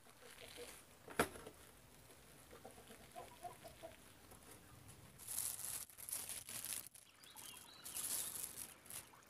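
Soft tearing and rustling as hands break open a ripe timadang (marang) fruit on a woven bamboo tray, with a sharp click about a second in. A hen clucks faintly a few times in the middle.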